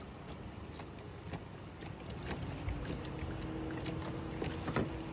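Small water slaps and lapping against a kayak's hull, with scattered light clicks over a low rumble. About halfway through, a steady low hum comes in and holds.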